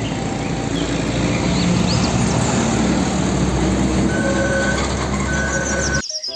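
Car-carrier truck driving along a busy road, a steady engine and tyre rumble with traffic noise that cuts off abruptly near the end.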